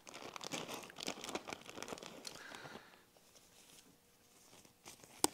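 Rustling and crinkling of fresh white cloth gloves being taken out and pulled onto the hands, busy for about three seconds and then quieter. A single sharp click comes near the end.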